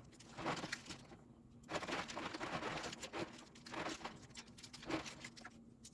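Plastic keycaps clicking and clattering against each other as they are swished by hand in a container of soapy water, in short, irregular bursts.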